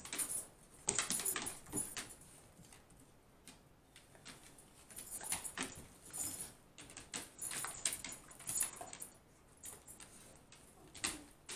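A yellow Labrador and a white German Shepherd scrabbling on a tile floor and snapping at soap bubbles: claws clicking and skidding and jaws snapping, in irregular sharp clicks and scuffles.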